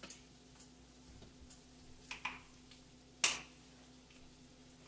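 Spice shaker bottles handled while seasoning: a few scattered clicks and taps of plastic lids and bottles, the loudest a sharp click a little over three seconds in, over a faint steady hum.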